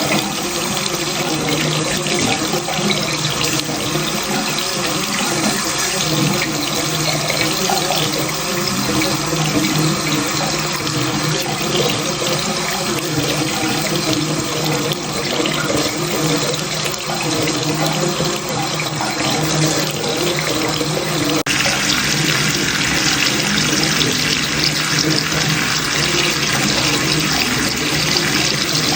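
Water running steadily in a bathroom, an even splashing hiss of a tap or flow into a sink. A little over two-thirds of the way through, the sound turns brighter and slightly louder as the flow changes.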